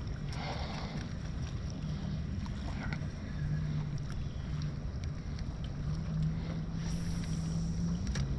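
Steady low rumble of wind and water around a small fishing boat, with a low hum that steps up and down in pitch and a few light clicks scattered through.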